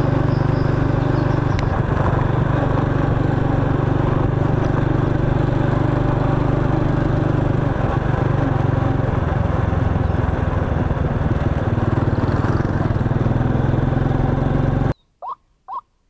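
Motorcycle engine running steadily at riding speed. It cuts off abruptly near the end, and short, rising-and-falling calls of a white-breasted waterhen follow, about two a second.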